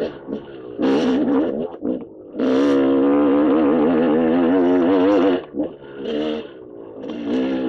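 KTM dirt bike engine on and off the throttle: a short burst about a second in, then a held pull of about three seconds with the pitch wavering, easing off and picking up again near the end.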